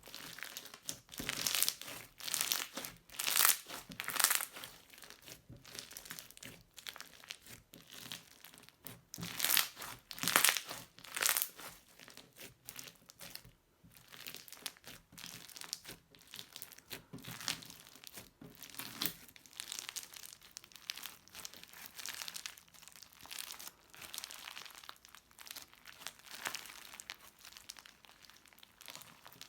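Crunchy slime being squeezed and pressed by hand, giving irregular crinkling, crackling pops. The bursts are louder and come thicker in the first half, then turn softer.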